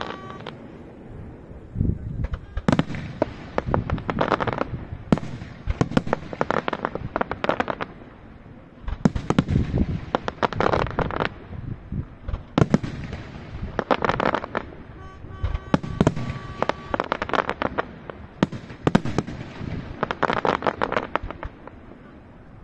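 Aerial firework shells bursting in quick succession, with sharp bangs and clusters of crackling. There is a short lull about eight seconds in.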